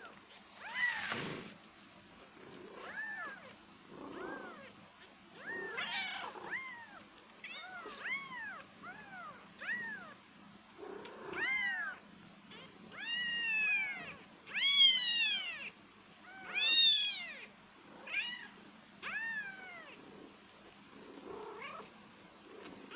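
Newborn kittens mewing: a string of short, high, thin calls, each rising and falling in pitch, about one or two a second, loudest midway through. A brief rustling noise about a second in.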